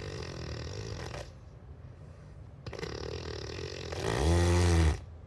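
A person snoring, with rattling snores on two breaths in. The second breath ends about four seconds in with a loud, low, pitched snore that rises and then falls, like a truck's engine changing gear.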